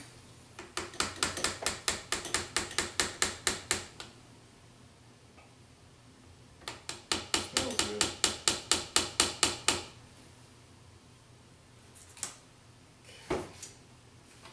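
Stand mixer's beater clicking rhythmically, about six clicks a second, as it turns through thick cream-cheese batter at low speed. It runs in two stretches of about three seconds each, with a couple of separate knocks near the end.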